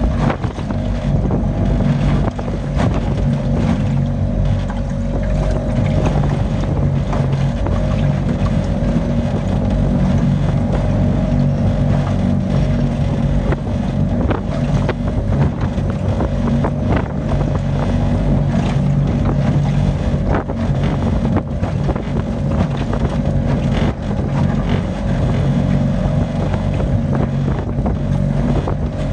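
A steady engine drone runs throughout, with wind buffeting the microphone.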